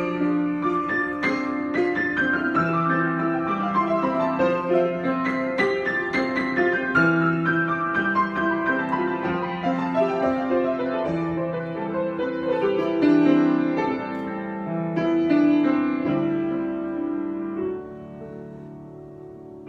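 Solo piano improvisation: sustained chords and melody notes over a moving bass line, growing quieter over the last few seconds.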